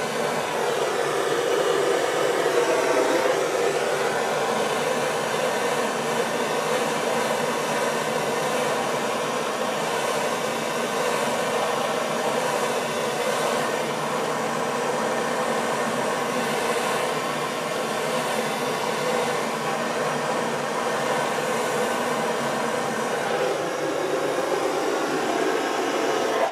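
Handheld gas soldering torch burning with a steady hiss while heating a copper pipe fitting for a sweat-soldered joint; the flame shuts off abruptly at the end.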